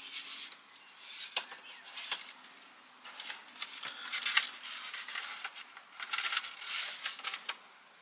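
Paper instruction booklet rustling as its pages are flipped over and unfolded, in several bursts with a few sharp crackles, stopping shortly before the end.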